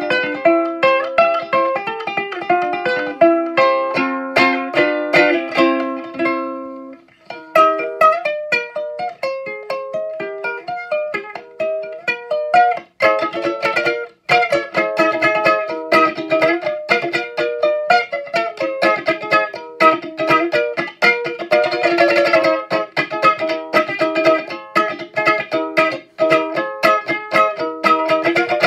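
A cigar-box ukulele playing solo: plucked single notes and chords, a brief break about seven seconds in, then fast, busy strumming.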